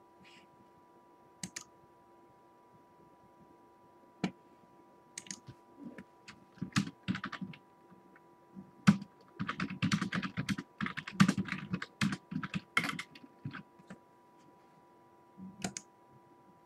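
Typing on a computer keyboard: scattered keystrokes, then a fast run of typing in the middle, over a faint steady electrical hum.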